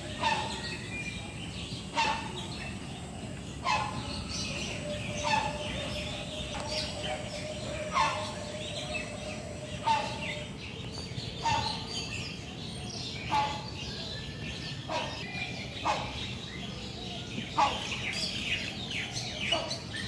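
Many birds calling: one loud, sharp call repeats about every second and a half to two seconds, over constant chatter of higher chirps and tweets.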